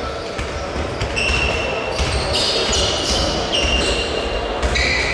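Several basketballs bouncing on a hardwood court, with many short, high sneaker squeaks from players moving during a warm-up, in a large sports hall.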